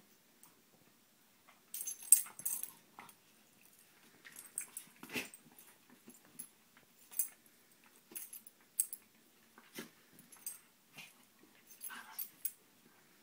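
A husky and a miniature pinscher play-wrestling: irregular short jingles and clinks of metal collar tags, loudest about two seconds in, with a few brief dog play noises in between.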